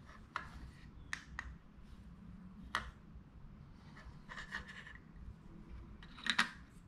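Small clicks and light rubbing from a circuit board being slid and turned on a magnifier stage, a handful of short taps spread out with the loudest pair near the end.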